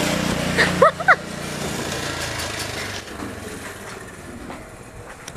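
A passing road vehicle, engine hum then tyre and road noise fading away over a few seconds. About a second in there are two short rising chirps.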